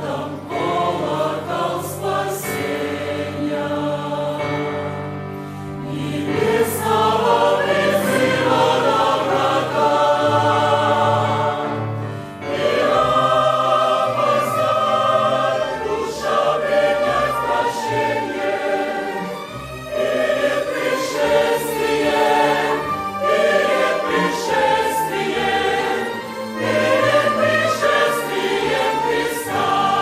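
Large mixed church choir singing a Russian hymn in harmony, accompanied by piano and a string section of violins, in phrases with short breaks between them.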